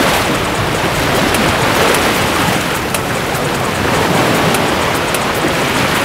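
Small sea waves breaking and washing up onto a sandy beach, a steady rushing hiss that swells and eases gently.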